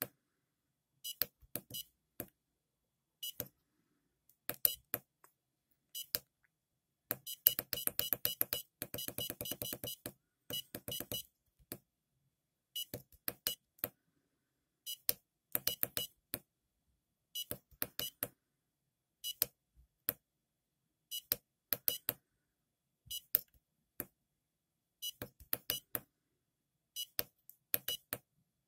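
Short electronic beeps from a home-built Arduino trip computer as its buttons are pressed, coming in clusters of two or three every second or two. About seven seconds in there is a fast stream of beeps for about three seconds.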